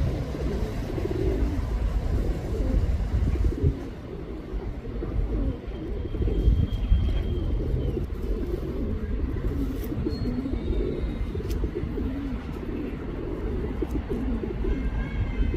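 Male pigeon cooing over and over, the low, rolling courtship coo that a male directs at a female, over a steady low rumble.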